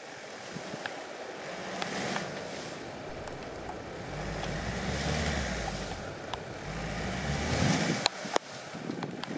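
VW T5 4Motion van working through deep snow: a low engine rumble builds in the middle, under a steady rush of tyres churning snow. Two sharp knocks come about eight seconds in.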